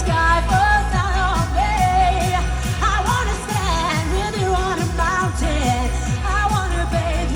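Live Eurodance music played loud through a festival PA: a steady four-on-the-floor kick drum at about two beats a second under a sung vocal melody.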